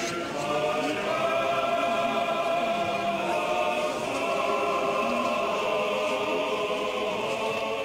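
Choir singing slow Russian Orthodox church chant, several voices holding long notes and moving together from chord to chord.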